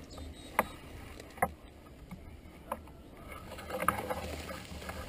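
Four short sharp clicks at uneven spacing of roughly a second, over a low steady rumble.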